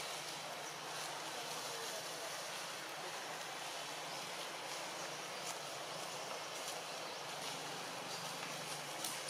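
Steady outdoor background hiss with a faint low hum underneath, and a short sharp click near the end.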